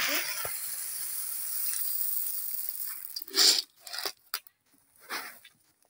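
Dry shelled maize kernels being handled in a metal basin: a steady rushing hiss for about three seconds, then a few short rattling scoops.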